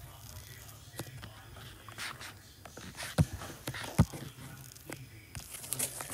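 Stylus taps on a tablet screen: scattered light taps and thumps, two louder ones about three and four seconds in, over a low steady hum.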